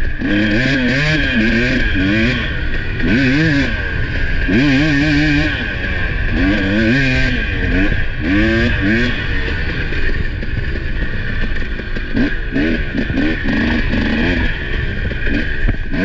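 Husqvarna 300 two-stroke dirt bike engine being ridden, its pitch rising and falling again and again as the throttle is opened and closed, with some clatter from the bike over rough ground.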